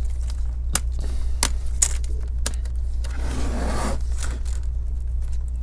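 Plastic screen bezel of an MSI GF65 Thin laptop being pried off with a plastic pry tool: its clips pop loose in a scatter of sharp clicks, with a scraping rub a little past the middle. A steady low hum runs underneath.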